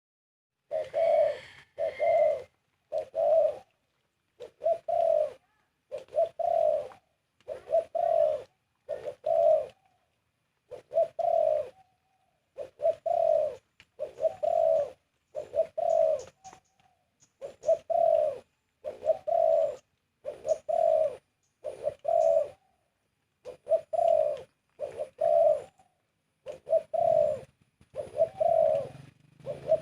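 Spotted dove cooing over and over: short low coos in groups of two or three, a phrase every second or so with brief pauses between.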